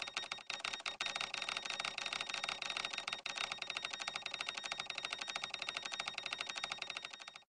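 Counter sound effect of rapid, even ticking, many ticks a second, fading out near the end.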